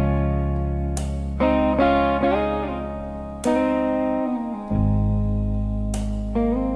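Slow blues instrumental: an electric guitar plays sustained notes with string bends over a held bass line, with a sharp accent hit roughly every two and a half seconds.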